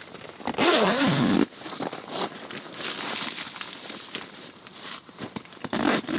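A loud rasping pull lasting about a second, starting about half a second in, followed by scattered light clicks and rustling of things being handled.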